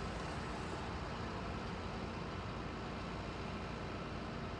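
Steady low hum of a stationary horizontal bandsaw's hydraulic log-handling machinery running as a log is turned on the loader, with no distinct knocks or impacts.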